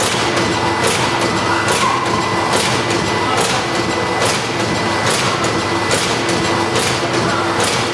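Horizontal pouch form-fill-seal packing machine with an auger powder filler running through its cycle: a steady mechanical run with a short hiss a little over once a second, and a thin steady high tone underneath.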